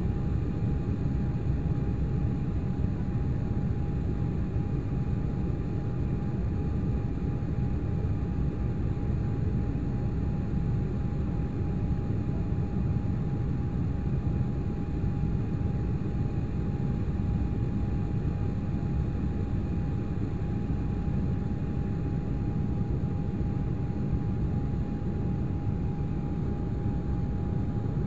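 Steady cabin noise of an Embraer E195 jet climbing after takeoff: a deep, even rumble of engines and airflow, with a thin, steady whine running through it.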